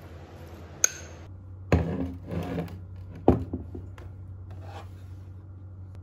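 Handling noises: a sharp click with a brief high ring, then about a second of rubbing and shuffling, then a sharp knock followed by a few lighter taps and a faint rustle, over a steady low hum.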